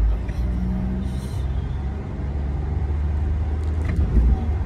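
Car driving, heard from inside the cabin: a steady low road and engine rumble, with a brief thump about four seconds in.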